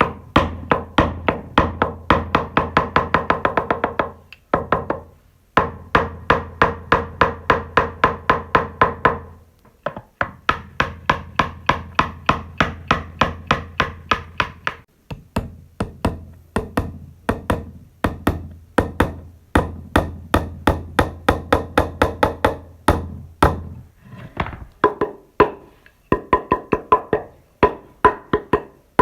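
Rapid runs of hammer blows, several strikes a second, each with a short ringing tone, broken by brief pauses.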